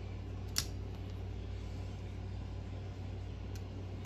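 Steady low hum in the background, with one sharp click a little over half a second in and a fainter click near the end, from small metal parts and tools being handled as a nitro engine's clutch is fitted.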